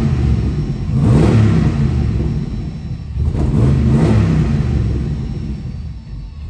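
LS V8 engine revving up and easing off several times, its pitch climbing and dropping with each swell before settling down near the end.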